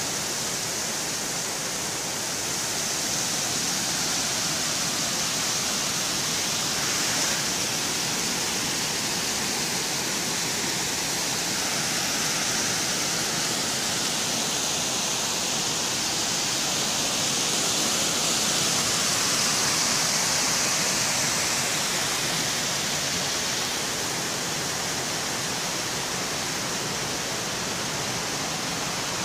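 Steady rushing of river water pouring over low rock ledges and a small cascade.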